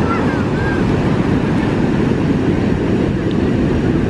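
Wind buffeting the microphone, a steady heavy rumble over the rush of breaking surf.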